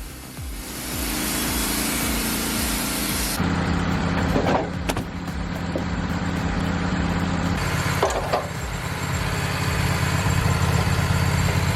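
A portable band sawmill's engine running steadily, its sound changing abruptly about a third of the way in and again about two-thirds in.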